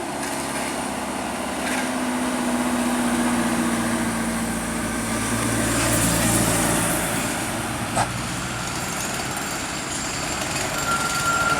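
A large road vehicle's engine, most likely a passing tour bus, runs with a low hum that sags a little in pitch and swells loudest about six seconds in. A single sharp click comes about eight seconds in. No telolet horn sounds.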